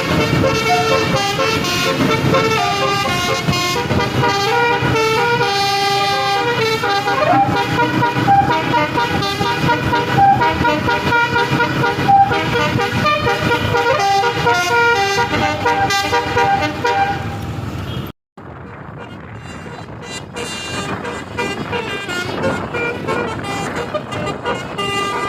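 An 18-note Basuri telolet bus horn playing a melody, its notes stepping from pitch to pitch. About eighteen seconds in it cuts off abruptly, and a quieter mix of vehicle sound follows.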